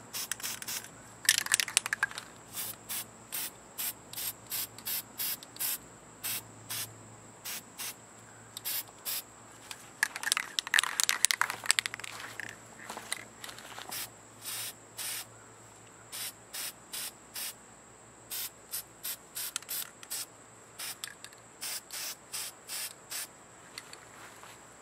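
An insect chirping in short, evenly repeated pulses, about two a second, with brief pauses. Louder rustling and handling noise comes about a second in and again around ten seconds in.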